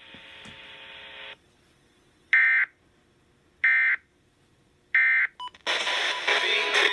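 Emergency Alert System digital data tones: three short, identical bursts of warbling modem-like shrieks about 1.3 s apart, the end-of-message code that closes the alert. Music starts near the end.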